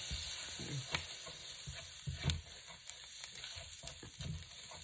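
Dried onions frying in butter in a pan, with a steady sizzle. A utensil stirring them knocks and scrapes against the pan now and then.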